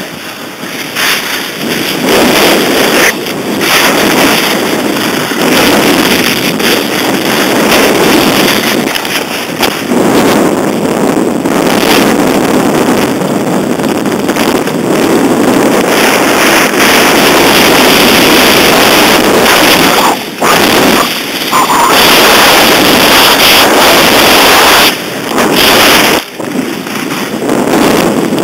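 Loud, steady rushing noise of a downhill ski run: wind buffeting the moving microphone together with skis sliding and scraping on snow, easing off briefly a few times in the last third.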